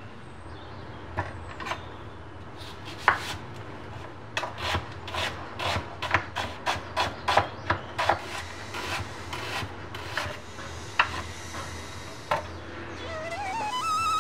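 Knife slicing a red onion on a wooden cutting board: a run of quick knocks of the blade on the wood, about three a second, stopping about eleven seconds in. Music rises in near the end.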